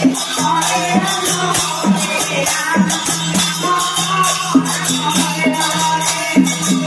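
Devotional nama sankirtana: a group chanting the divine names in unison, with small hand cymbals clashing in a steady rhythm over a steady low drone.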